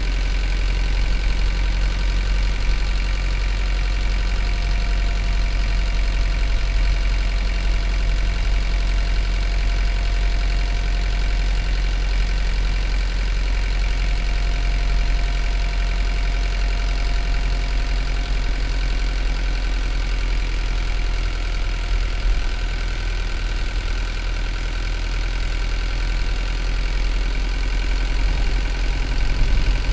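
Hino Liesse minibus's J05D 4.7-litre four-cylinder diesel engine running steadily at an even engine speed, a deep rumble with a faint whine above it.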